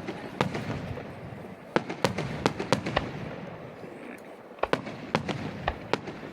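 Fireworks going off: clusters of sharp bangs and cracks in quick succession over a low rumble, with a short lull in the middle.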